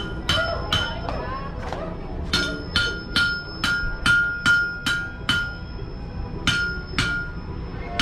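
Blacksmith's hammer striking iron on an anvil, about two and a half blows a second, each blow ringing with a clear metallic tone. The blows pause briefly about six seconds in, then start again.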